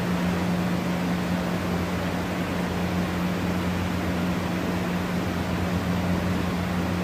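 Steady background hiss with a constant low hum underneath, unchanging throughout: room noise with no distinct event.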